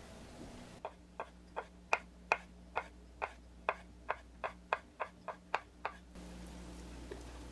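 A run of about fifteen sharp taps, roughly two to three a second, lasting about five seconds.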